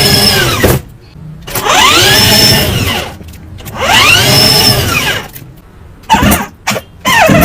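Small electric motor of a toy RC car whining up in pitch and back down, three long revs of about a second and a half each, then a few short quick blips near the end.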